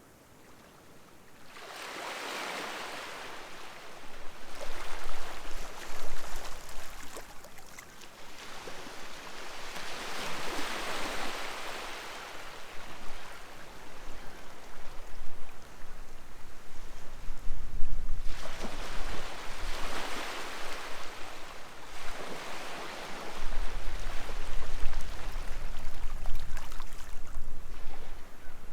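Sea waves washing onto the shore in three surges, about eight or nine seconds apart, each swelling and then fading away.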